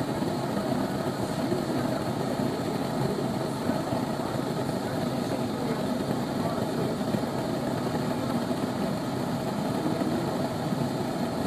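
Lampworking tabletop gas burner flame burning with a steady rushing noise while glass is heated in it.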